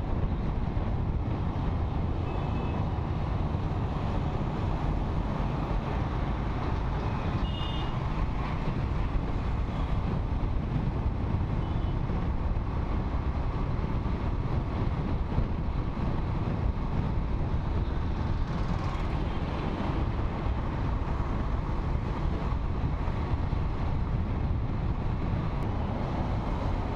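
Motorcycle riding in city traffic: a steady rush of engine, road and wind noise on a helmet-mounted microphone, with a couple of brief faint beeps around two and eight seconds in.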